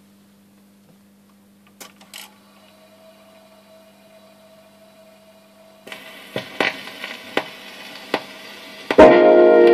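Perpetuum Ebner record changer playing a 78 rpm shellac record. Over a faint low hum, the tonearm mechanism clicks twice about two seconds in. A few seconds later the stylus meets the groove and the hiss and crackle of surface noise begin, with a tick about every three-quarters of a second as the record turns. Near the end the record's music starts loudly: vocal group with a band, guitar and horns.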